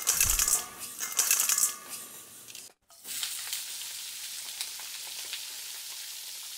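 Chicken wings frying in a commercial deep fryer. Two loud bursts of sizzling come in the first two seconds as they go into the hot oil, then after a brief break a steady, even hiss of bubbling oil.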